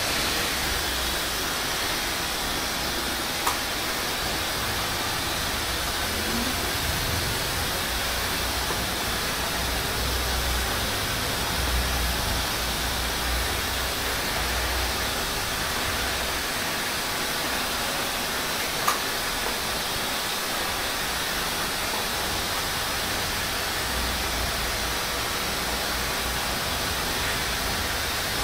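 Hand-held hair dryer blowing steadily, a constant airy rush, with a couple of small clicks.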